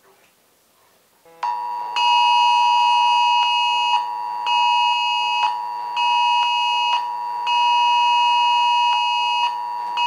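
iPhone XS sounding the UK emergency alert tone for the national test alert. A loud, harsh alarm starts about a second and a half in with a steady tone. From about two seconds, higher blasts sound over it in a rhythm of long and short blasts, about two seconds, then one-second blasts, with short gaps between.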